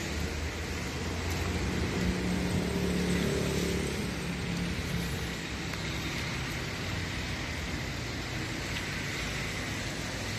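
Steady street traffic noise, a low rumble and hiss, with a vehicle engine swelling louder about two to four seconds in.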